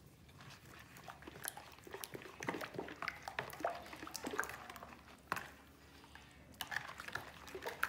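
A spoon stirring thick cassava cake batter in a plastic mixing bowl: irregular scraping, clicking and wet squelching, pausing briefly about five and a half seconds in before the stirring resumes.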